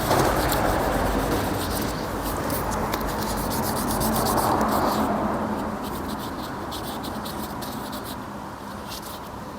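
1200-grit sandpaper rubbed by hand over the edges of a plastic headlight lens: a steady scratching that grows softer after about five seconds.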